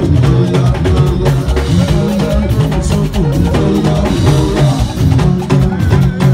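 Loud band music with a steady drum beat and heavy bass.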